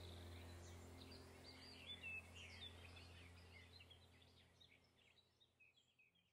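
Faint birdsong of short chirps and trills over a steady low hum, the whole fading steadily away.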